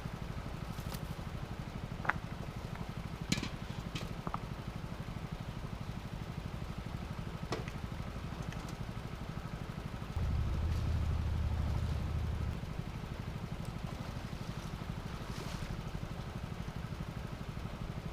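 Gold dredge engine running steadily with an even low pulse, getting louder for about two seconds around ten seconds in. A few light clicks sound in the first half.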